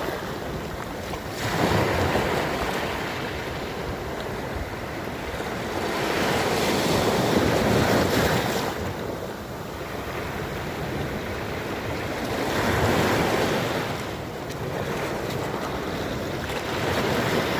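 Sea waves washing onto a shore: a steady rush of surf that swells and eases in slow surges, about every five to six seconds.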